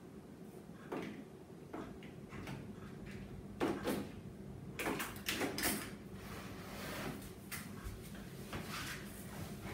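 Nail-art supplies being rummaged through and handled: scattered small clicks, knocks and rustles, with a cluster of louder knocks from about three and a half to six seconds in.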